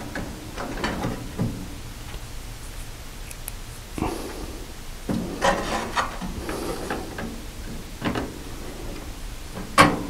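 Hands fitting wires and a circuit board into a toaster oven's sheet-metal cabinet: scattered rubbing, light clicks and knocks, with a sharper click near the end.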